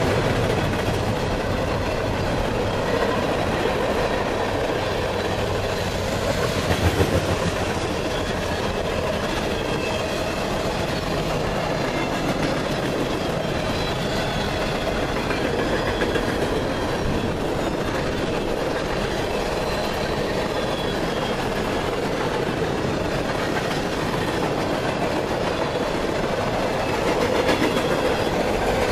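Freight cars rolling past at close range: a steady roar of steel wheels on rail, with a clickety-clack of wheels over the rail joints. A brief louder clatter comes about seven seconds in.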